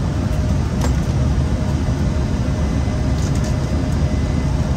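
Steady rumble of airflow and engine noise inside an Airbus A320 flight deck on approach, with a faint steady tone over it. A single light click comes just under a second in.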